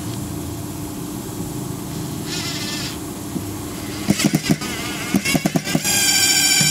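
Makita TD002G 40V XGT brushless cordless impact driver driving a screw into wood: a steady low hum at first, then from about four seconds in the hammer mechanism starts striking in short spurts, going into continuous rapid hammering near the end as the screw sinks in.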